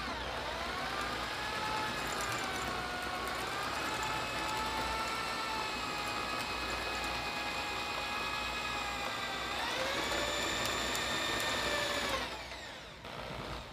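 Electric drill spinning a thin wooden stick through a chisel dowel jig, turning it into an 8 mm dowel. The motor's whine drops in pitch under the load of the cut and wavers, picks up speed about nine and a half seconds in, then is switched off about twelve seconds in and winds down.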